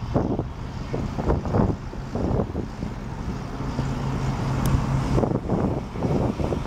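John Deere 8440 four-wheel-drive tractor's 7.6-litre six-cylinder diesel engine running as the tractor drives off and turns, pulling hard enough to throw black exhaust smoke. A steady low drone with uneven surges, and a held hum in the middle.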